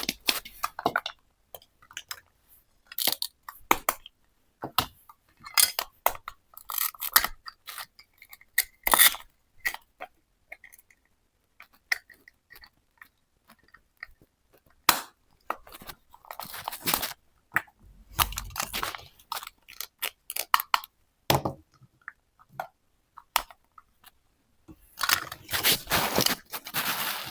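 Toy kitchen set pieces being handled: irregular clicks, clatter and crinkly rustling, with a longer stretch of rustling and scraping near the end.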